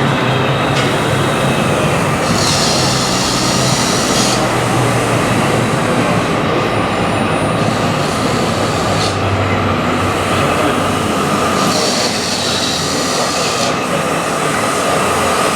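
RC model trucks and construction machines running: a steady mechanical noise with a thin, constant whine. Two hisses, each about two seconds long, come about two seconds in and again near the end.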